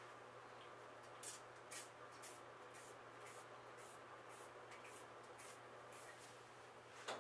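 Small hand spray bottle misting a plant: a run of faint, quick spritzes about two a second, then one more near the end, over a faint steady hum.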